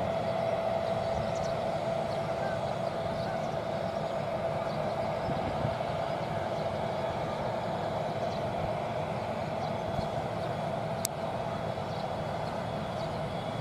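Steady mechanical drone with a constant mid-pitched whine running under it, and a single sharp click about eleven seconds in.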